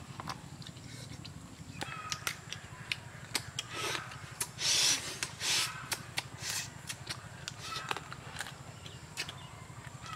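Close-up eating sounds: teeth biting and chewing grilled chicken legs, with wet smacking and sucking noises, loudest about halfway through. Birds chirp a few times in the background.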